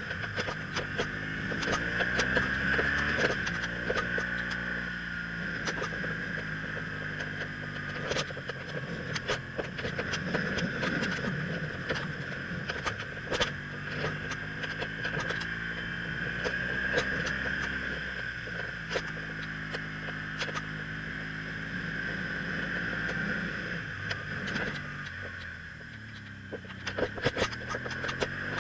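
BMW R1200CL's boxer twin engine pulling the motorcycle uphill, its pitch falling and rising several times as the bike slows and speeds up. Under it runs a steady rush of wind and road noise with frequent short knocks.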